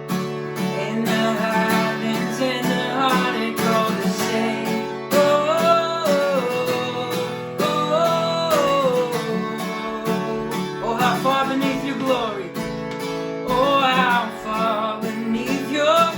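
Worship band music led by acoustic guitar, with a melody line gliding between notes.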